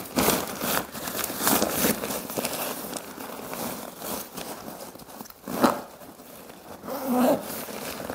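Nylon tent fabric rustling and crinkling in irregular bursts as it is pushed into its carrying bag, with the bag's zipper being worked along its edge; one sharper, louder rasp comes about five and a half seconds in.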